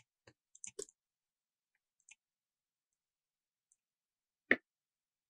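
Clicks of a computer mouse and keyboard: a quick cluster of small clicks in the first second, a faint click about two seconds in, and a single louder click about four and a half seconds in.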